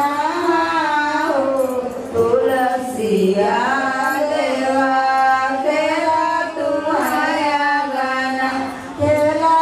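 A woman's voice singing a slow melody with long held notes that slide up and down between short breaks.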